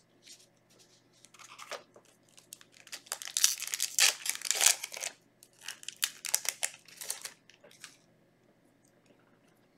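A foil Yu-Gi-Oh booster pack wrapper being torn open and crinkled, in a run of quick rustles that are loudest in the middle and die away near the end.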